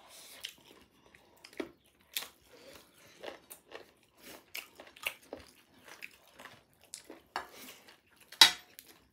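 Close-up eating sounds from people chewing buffalo-meat biryani: irregular wet chewing and mouth smacks, with a louder sharp click near the end.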